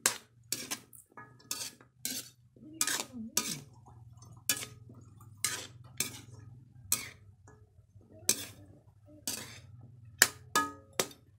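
A spatula scrapes and knocks against a wok while stir-frying chicken feet, about one stroke every half second to second, some with a short ring. A steady low hum runs underneath.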